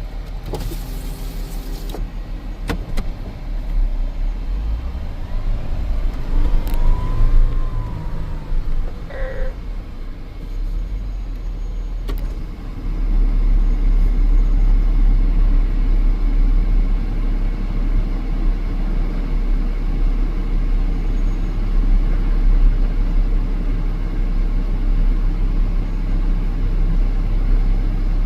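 Off-road vehicle's engine running as it drives the trail, a steady low rumble that gets louder about halfway through.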